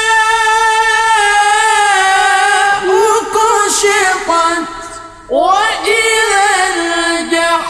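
Melodic Qur'an recitation (tilawah) by a male qari in a high voice: a long, ornamented held vowel with slow pitch wavers that fades about five seconds in. A new phrase begins about a second later.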